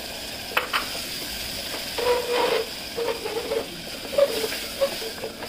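Ground tomato-and-onion paste sizzling in hot oil in an aluminium pressure-cooker pot, with a spoon stirring and scraping through it. A couple of sharp clicks of the spoon against the pot come about half a second in.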